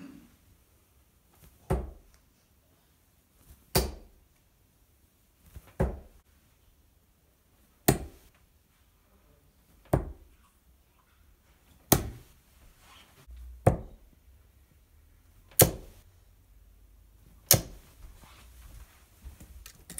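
Steel-tip darts thudding one after another into a bristle dartboard, nine sharp hits about two seconds apart, in a steady throwing rhythm.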